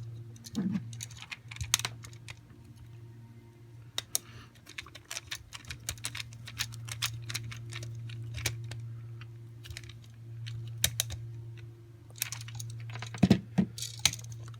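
Small clicks and taps of a screwdriver and wires on an electrical outlet's terminal screws as wires are looped and tightened. They come irregularly, with a quick run of ticks in the middle and a louder cluster near the end, over a steady low hum.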